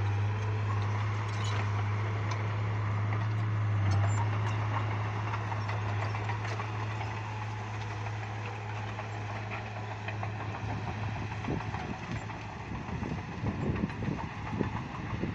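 Bulldozer diesel engine running steadily with a deep drone, joined by irregular knocks and rattles in the last few seconds.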